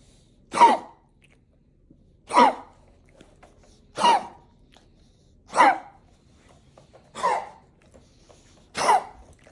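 A person coughing six times in a row, one short cough about every second and a half, each with a pitch that drops.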